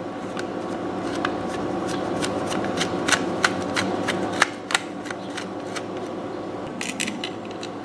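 Irregular small clicks and ticks of a precision Phillips screwdriver working screws out of an Xbox One controller's plastic shell, with a cluster of clicks near the end, over a steady background hum.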